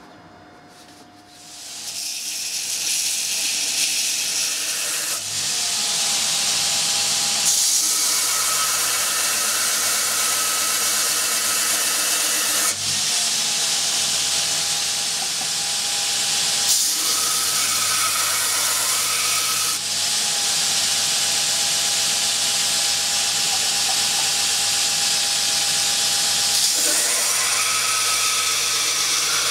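Belt grinder running, with a forged XC75 carbon-steel knife blade pressed against the abrasive belt to grind the cutting-edge bevels. The loud, steady grinding hiss starts about a second and a half in and changes in tone every few seconds as the blade is moved on the belt.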